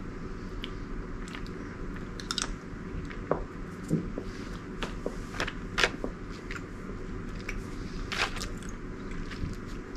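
A person chewing soft, chewy Mike and Ike sour candy, with scattered wet mouth clicks and smacks, over a steady low hum.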